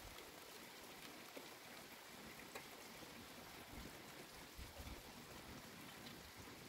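Faint steady rain falling, with scattered drops ticking and a couple of low thumps a little over halfway through.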